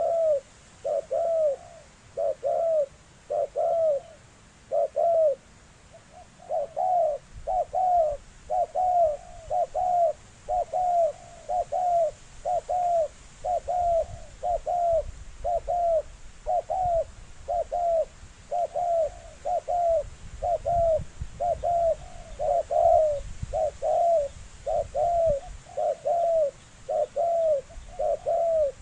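A spotted dove with the low 'thổ sấm' voice cooing over and over. Its short, arched coo notes come about one and a half a second, often in pairs, in an unbroken series.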